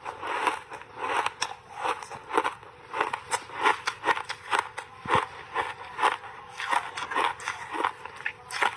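Chewing a mouthful of hard, dry block ice dyed purple and dusted with milk powder: a steady run of sharp crunches, about two a second.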